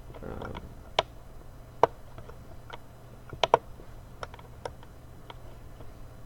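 About ten sharp clicks, spaced irregularly, like taps on computer keys or buttons; the loudest comes about two seconds in, with a close pair about three and a half seconds in. A steady low hum runs under them.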